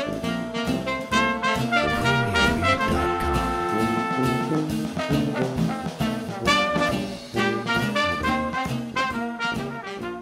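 Jazzy background music with brass and a steady beat.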